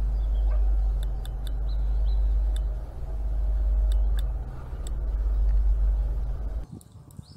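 Low rumble of wind buffeting the microphone, rising and falling in slow swells, with a few faint sharp ticks. It cuts off abruptly near the end.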